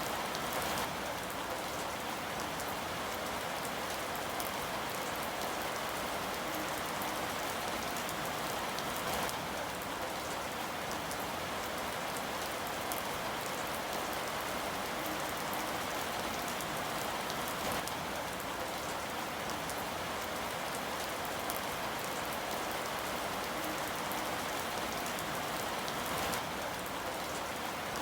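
Steady rain falling and pattering on a surface, an even hiss with scattered individual drop ticks and no change in strength.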